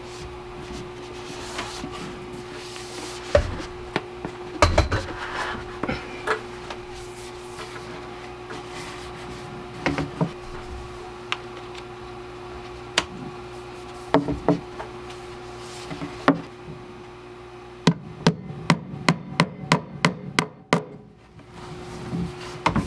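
A hammer knocking a nail into a wooden floor joist to fix a nail-in clamp holding a 3/4-inch plastic water pipe. Scattered single knocks and rubbing of the pipe against the wood come first, then a quick run of about ten evenly spaced hammer blows near the end.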